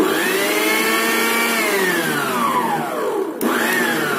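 Birla mixer grinder's universal motor switched on for a test run after rewiring: a loud whine that comes straight up to speed, then sinks in pitch over a couple of seconds. A click about three and a half seconds in, and the whine surges up again and starts winding down.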